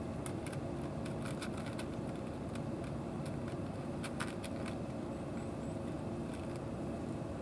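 Steady low motor hum, with faint wet clicks and smacks of cats eating from a tray and licking, in two clusters in the first half.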